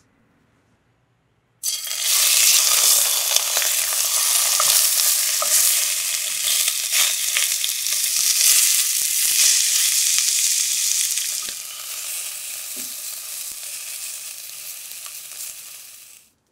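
Sea bream fillets sizzling in hot oil in a waterless pot as they are seared, with a few light taps of the cooking utensil. The sizzle starts suddenly about a second and a half in, eases off later and cuts off just before the end.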